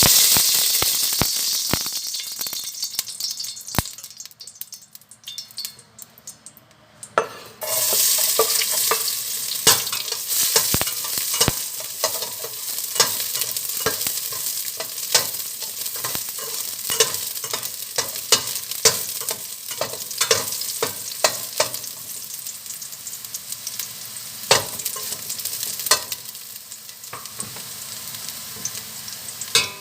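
Food frying in hot oil in a pan, sizzling hard at first and dying down over a few seconds, then sizzling steadily again from about seven seconds in. A utensil stirring the food, knocking and scraping against the pan many times.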